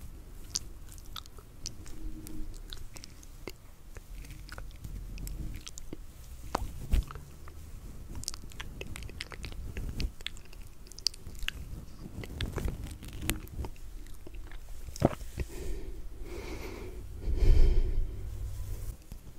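Close-miked crackling and soft clicking as strands of wig hair are rubbed against a fuzzy microphone cover. Near the end comes a louder low rushing burst of noise.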